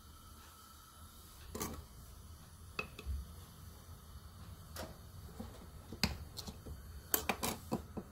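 A knife cutting a block of solid ghee in a glass bowl: scattered light clicks and taps of the blade against the glass, with a quick run of several taps near the end.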